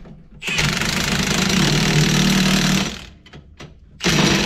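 Impact wrench hammering for about two seconds, then a short second burst near the end, undoing the nuts that hold a corn header's stalk-chopper knives.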